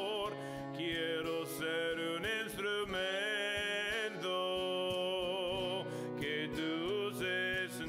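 Worship song playing: a voice holding long notes with vibrato over instrumental accompaniment with a steady pulse.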